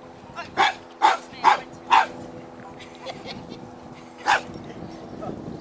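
Dog barking during agility training: four quick barks in the first two seconds, then one more about four seconds in.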